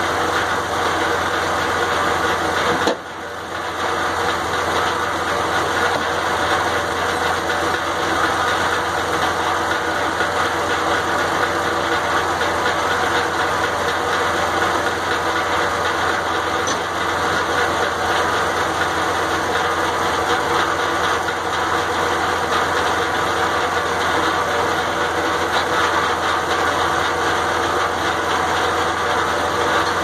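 Circular sawmill running: the engine powering it runs steadily while the big head saw blade spins without cutting. The sound dips briefly about three seconds in.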